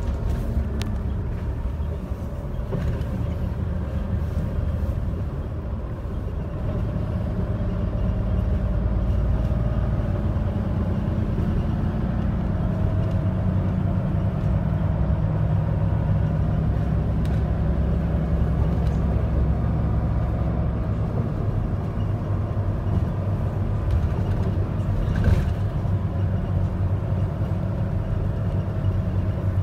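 Steady low rumble of a bus engine, heard from inside the passenger cabin, growing a little louder about a quarter of the way in. One short click near the end.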